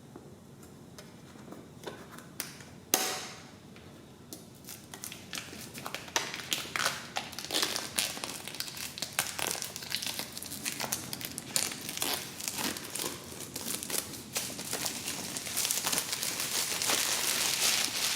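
Product packaging being handled and opened: crinkling and rustling with many small clicks and scrapes, a sharp click about three seconds in, and a longer, louder rustle near the end.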